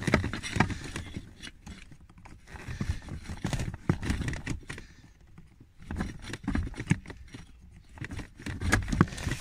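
Irregular scraping and small clicks from a hand tool worked in and out of the terminals of a blower final stage resistor connector, cleaning dirt off the pins, with a brief lull near the middle.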